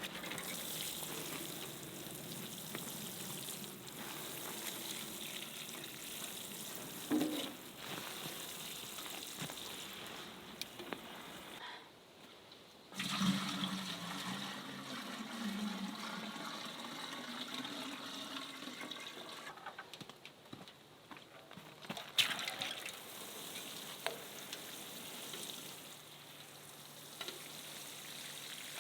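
Steady rush of running water, cut off briefly twice.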